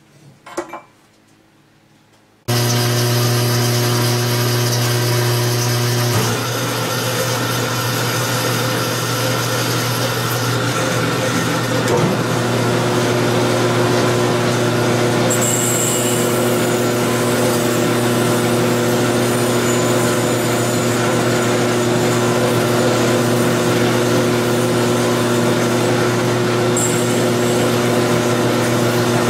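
Belt grinder switched on about two seconds in, its motor and belt then running steadily. The steel bevel of a forged adze is held against the belt to finish-grind it after heat treating, with brief sharper hissing from the steel on the belt now and then.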